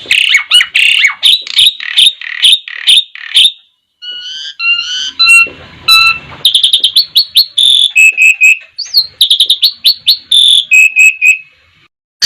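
Javan pied starling (jalak suren) singing a loud, varied run of calls: a fast series of falling notes, then a few clear whistled notes, then rapid chattering and short repeated whistles. It stops about a second before the end.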